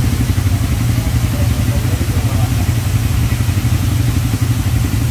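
ATV engine running steadily with a low, rapid pulsing.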